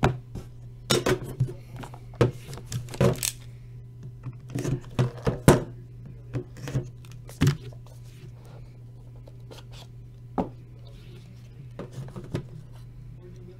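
Clicks, taps and light scrapes of a trading-card box and its inner case being handled and opened, busiest in the first half, over a steady low hum.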